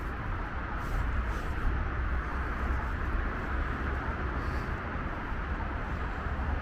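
Wind buffeting the microphone: a steady, fluttering low rumble under a constant rushing hiss.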